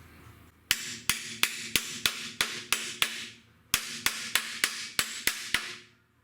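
Hammer blows knocking a steel part of a welded card table into its cut hole to seat it tight: two quick runs of about eight strikes each, three to four a second, with a short pause between and a faint ringing note under them.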